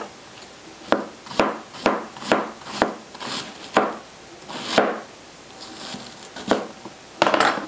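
A chef's knife shredding a wedge of green cabbage on a cutting board: a crisp crunch as the blade cuts through, with a knock on the board at each stroke. About two cuts a second, a pause some five seconds in, then two more cuts near the end.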